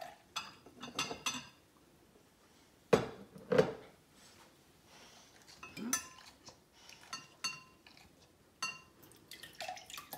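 A metal spoon clinking and knocking against a glass sauce jar and a glass measuring cup while sauce is scooped out, a scatter of short clinks with two louder knocks about three seconds in.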